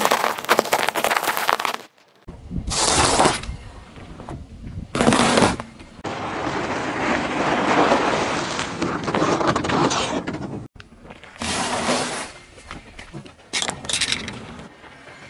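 A car tyre rolling over and crushing objects on asphalt in a series of quickly cut clips: a burst of crunching and cracking as small hard eggs break, then separate sharp cracks. Then a longer, steady squashing noise as the tyre rolls over soft marshmallow chicks, and more cracks near the end as plastic sunglasses snap. Each clip's sound cuts off abruptly.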